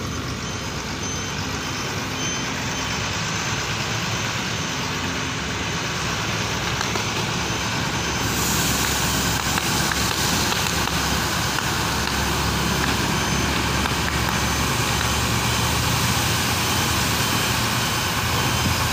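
Fire burning on a truck loaded with plastic granules: a steady rushing noise with faint crackles, growing slowly louder.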